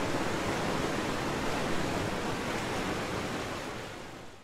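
Steady rushing noise with no tone or rhythm, fading out over the last second.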